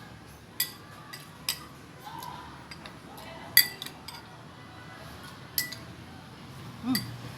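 Spoon or fork clinking against a plate or bowl while eating, about five sharp clinks spread out, the loudest about three and a half seconds in.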